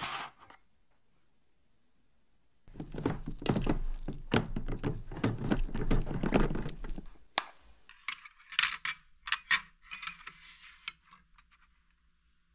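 A ceramic plate set down with a knock. Then, for about five seconds, a rice paddle scraping and thudding as it scoops cooked rice from an electric rice cooker's inner pot. After that comes a quick run of sharp clinks of dishes and utensils.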